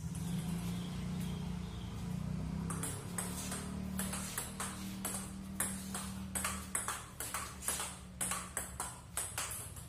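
Table tennis rally: a celluloid ping-pong ball clicking back and forth off the paddles and the table, starting about three seconds in and going on in a quick, even run of two to three clicks a second, over a steady low hum.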